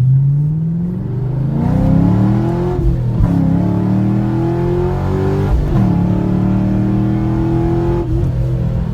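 Chevrolet Camaro SS's 6.2-litre V8 accelerating hard, its pitch climbing and dropping back at gear changes about three and six seconds in, then holding at higher speed.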